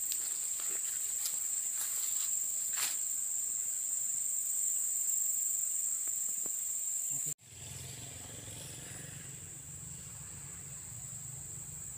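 Insects droning steadily in a high-pitched chorus, with a few faint clicks in the first seconds. About seven seconds in the sound cuts off abruptly, then the insect drone returns fainter over a low steady rumble.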